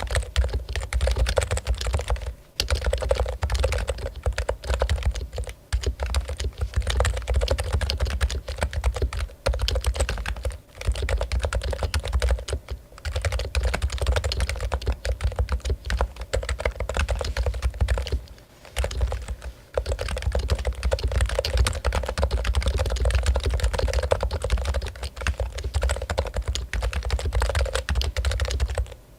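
Topre Realforce keyboard being typed on fast and without letup: a dense stream of key presses on its Topre switches, broken by a few brief pauses.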